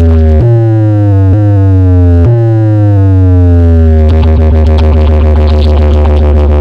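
Heavy electronic synthesizer bass from a DJ sound-check remix: several loud bass notes, each sliding down in pitch and restarted abruptly, then a steady buzzing, rapidly pulsing bass tone from about four seconds in.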